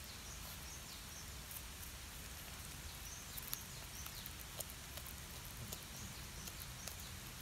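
Cat crunching on a whole raw river fish: irregular sharp crunches and clicks as its teeth break the fish, over a steady outdoor hiss.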